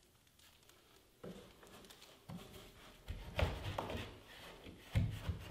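Quiet handling sounds of a carpet tile being pressed and fitted onto a wooden stair: a few soft knocks and rustles, growing more frequent from about three seconds in.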